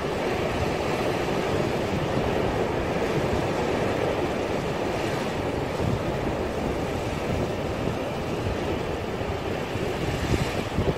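Steady rumble and hiss of a moving vehicle, with a few louder bumps near the end.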